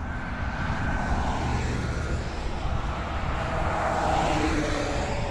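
Road traffic passing close by: a pickup truck and then another car go past, tyre and engine noise swelling as each goes by, twice, over a steady low rumble.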